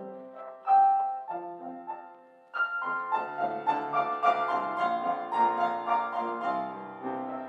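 Slow piano music, sparse single notes at first, then fuller and more continuous playing from about two and a half seconds in.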